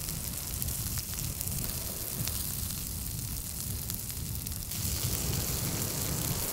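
Asparagus sizzling in butter and coconut oil in a cast-iron skillet: a steady crackling hiss with faint pops, a little brighter from about five seconds in, over a low rumble.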